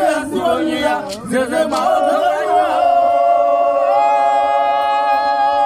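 Unaccompanied chanting voices with wavering pitch. From about two seconds in, one long steady sung note is held for roughly three and a half seconds and stops near the end.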